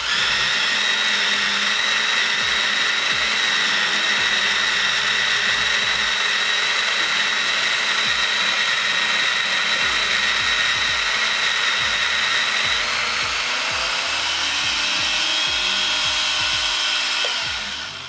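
Goat Story Arco coffee grinder in its electric base, motor and burrs grinding coffee at its finest espresso setting: a loud steady whine that starts suddenly. About two-thirds of the way through the pitch shifts and it gets louder as the last of the beans are ground through, then the motor stops just before the end.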